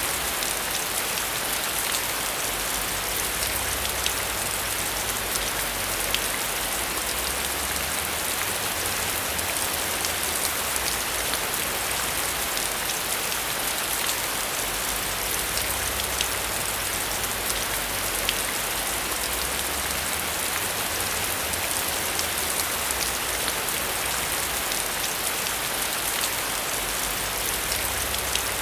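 Heavy rain falling steadily, a dense hiss with single drops ticking sharply on a hard surface.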